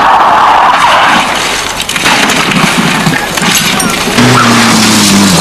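Rally car in loud, rough noise; about four seconds in an engine note comes through clearly, falling slightly in pitch.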